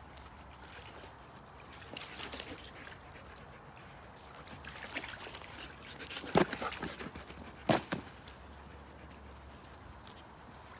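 Scattered rustling and two sharp knocks about a second apart, over a faint steady background.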